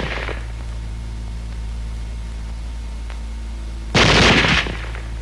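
A short burst of automatic fire from a select-fire carbine about four seconds in, lasting under a second, over the steady low hum of an old film soundtrack.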